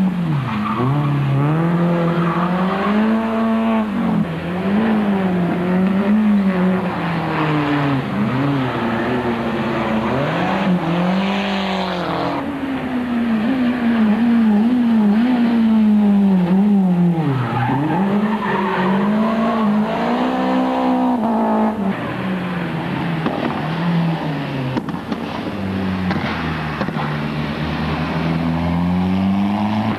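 Rally car engines revving hard and dropping back again and again, the pitch rising and breaking at each gear change as the cars brake and accelerate through a tight chicane, with tyre squeal.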